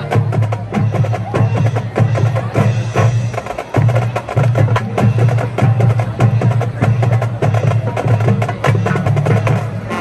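Music with busy, rapid percussion strokes over a strong bass line that changes note every second or so.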